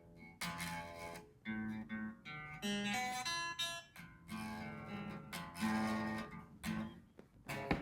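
Unplugged Fender HSS Telecaster electric guitar played acoustically: plucked single notes and short chords, one after another with short gaps, each ringing briefly and fading. The notes are being checked for clean playing and fret buzz.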